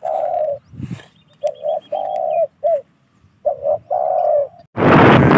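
Spotted dove cooing in three repeated phrases of short and drawn-out notes. Near the end the sound cuts abruptly to loud wind noise on the microphone.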